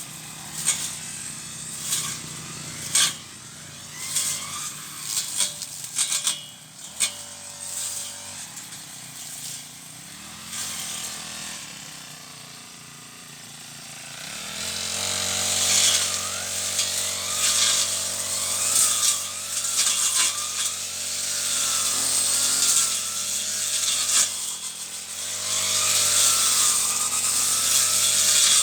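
Brush cutter engine running with sharp clicks and ticks as the cutting head strikes weeds and debris. It falls back toward idle about twelve seconds in, then is throttled up and runs louder and higher for the second half.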